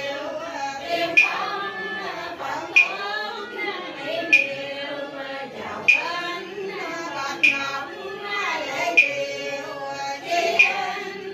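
Caodaist liturgical chanting: voices intoning a prayer in a slow, sung recitation. A sharp struck beat keeps time, about once every one and a half seconds.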